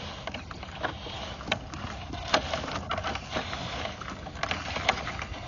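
Sewer inspection camera and its push cable moving through a drain pipe: a steady scraping hiss with scattered sharp clicks and knocks as the camera head rubs and bumps along the pipe.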